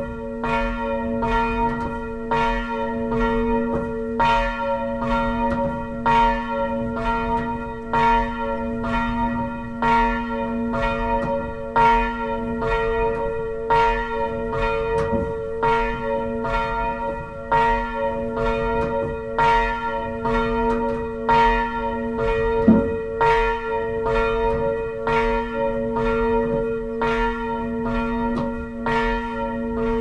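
Church bell swung by hand on a rope, its clapper striking evenly in a steady beat, strike after strike over the bell's sustained ringing hum. The even rhythm shows the bell is swinging fully and the ringer is holding the beat.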